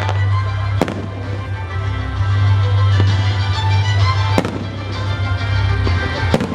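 Fireworks salute bursting in the sky: four sharp bangs a second or two apart, over loud continuous music.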